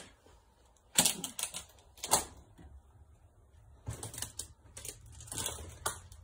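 Irregular clatter of knocks and scrapes from someone moving through junk in a cluttered storage container. The two sharpest knocks come about one and two seconds in, with a looser run of smaller knocks and rattles later on.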